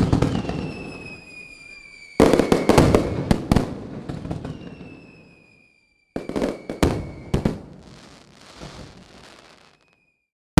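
Fireworks going off: a bang at the start, then a long whistle slowly falling in pitch. About two seconds in comes a dense volley of sharp cracks and pops that dies away. A second round of bangs and crackles starts about six seconds in and trails off into a hissing fizz.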